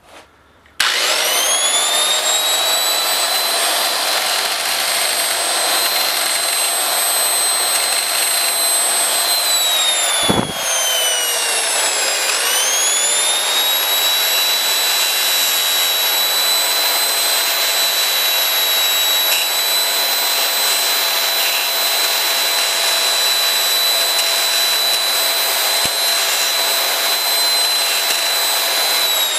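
Handheld angle grinder with a cutting disc, switched on about a second in and rising to a steady high whine as it cuts a small metal spacer ring held in a vise. About ten seconds in it is released and winds down in pitch for a couple of seconds, then is triggered again and runs back up to the same steady whine.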